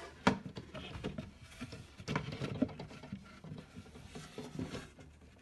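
Wooden top panel of a flat-pack cat house being fitted and pushed down onto the side panels' pre-set bolts: a sharp knock about a quarter second in, then a run of smaller irregular taps, bumps and scrapes of board on board.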